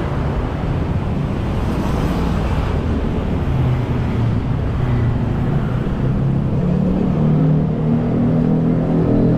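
Street traffic: motor vehicle engines running close by, their hum growing stronger in the second half, with a vehicle passing about two seconds in.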